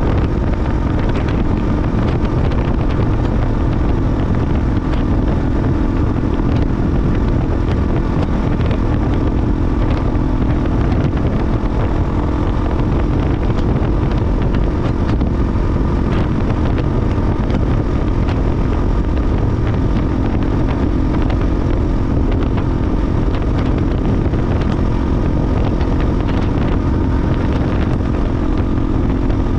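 KTM 450 EXC Six Days' single-cylinder four-stroke engine running under way at a steady pitch, with low wind rumble on the microphone.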